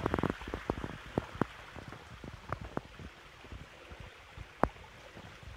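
Running water trickling steadily, with scattered sharp clicks and taps: a quick cluster at the start and a strong single click a little past the middle.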